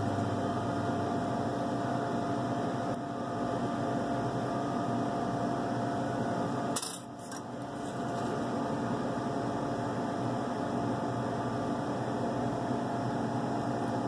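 Steady electrical hum of room equipment, with a single sharp click about seven seconds in.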